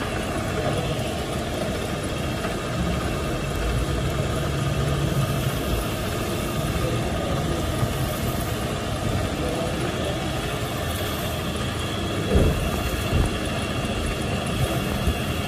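Metal lathe running steadily with a piston spinning in its chuck, a constant machine hum. Two short knocks come a few seconds before the end.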